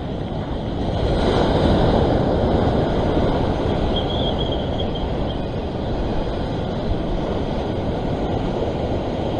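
Sea waves surging and breaking against a rock ledge, with wind buffeting the microphone; the wash swells a second or so in and then settles to a steady rush.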